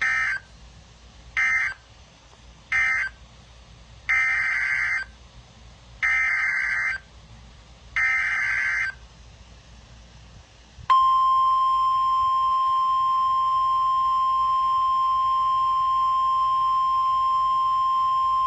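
Emergency Alert System data bursts and alert tone from NOAA Weather Radio. First come three short buzzy data bursts, the end-of-message codes of the previous warning. Then come three longer SAME header bursts that open the next tornado warning. About two seconds later a steady single-pitch 1050 Hz warning alarm tone starts and holds.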